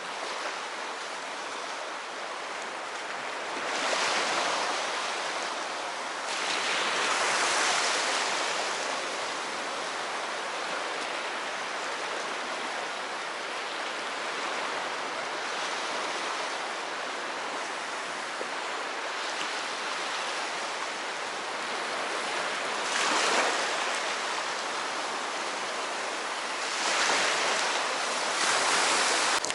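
Sea waves washing onto a shallow shore: a steady wash of surf, with several louder surges as waves break, the biggest about four and seven seconds in and again near the end.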